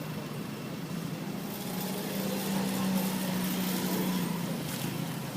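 A motor vehicle's engine running as it passes, a steady low hum that grows a little louder in the middle and eases off again.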